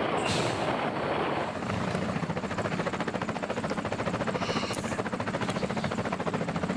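Helicopter rotor beating in a fast, even rhythm over a steady low engine hum.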